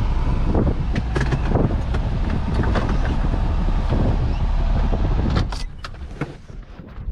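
Car driving with a low road rumble and rattling clicks. About five seconds in the rumble drops away, leaving a few sharp clicks and knocks.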